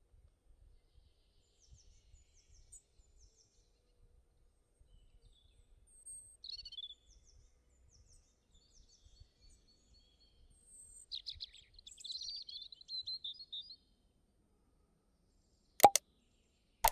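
Faint birds chirping in short high calls, loudest in a burst around the middle and again a few seconds later, then a single sharp click near the end.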